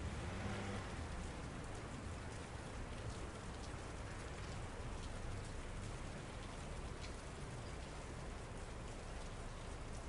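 Steady city rain: an even hiss of falling rain with scattered sharp drop ticks and a low rumble underneath.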